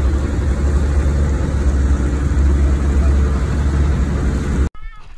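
Boat engine running steadily under way, a loud low rumble mixed with the rush of water and wind. It cuts off abruptly near the end, giving way to much quieter sound.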